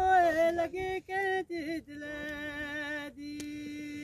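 A man singing unaccompanied, with wavering, ornamented notes, then one long held note from about two seconds in.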